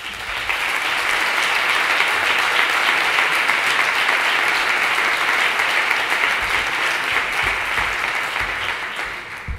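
A large audience applauding, swelling in the first second, holding steady, then thinning out near the end.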